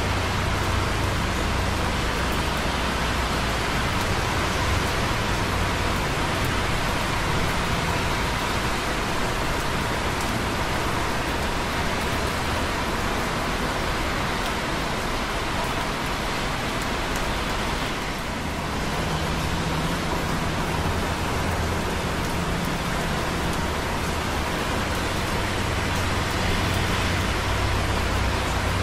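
Light rain dripping on concrete close by, over the steady noise of busy traffic on wet roads below. The traffic's low rumble eases briefly about two-thirds of the way in.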